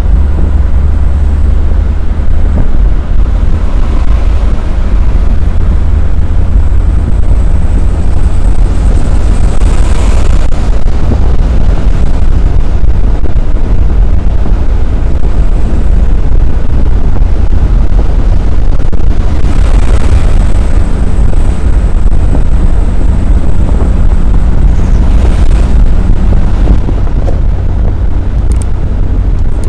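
Loud, steady rumble from inside the cab of an Isuzu Elf minibus at highway speed: engine, tyre and wind noise together, with a hiss that swells briefly a few times.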